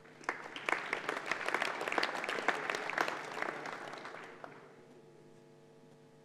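Audience applause: dense clapping starts at once, holds for about three seconds, then thins out and dies away about four and a half seconds in.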